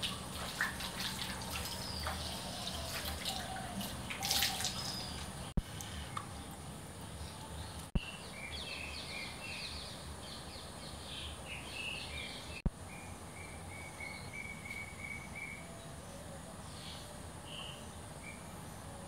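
Water splashing at a sink as hands wash a face, then birds chirping in short notes, one of them repeating an even run of calls, over a steady high insect drone.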